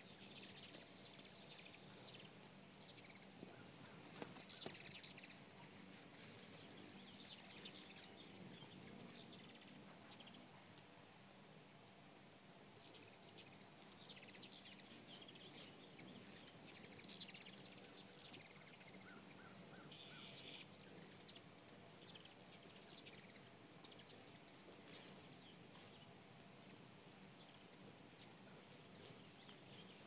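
Hummingbirds chittering: repeated bursts, a second or two long, of high, squeaky chips and twitters, with gaps between them.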